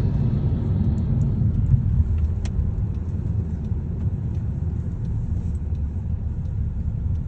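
Steady low rumble of a moving car heard from inside the cabin: engine and road noise, with one faint click about two and a half seconds in.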